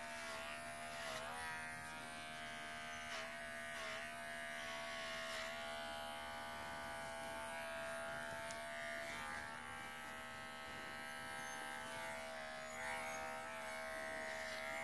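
Cordless dog-grooming clipper running with a steady buzz while it trims the hair on a puppy's muzzle and lips; its pitch sags briefly a few times.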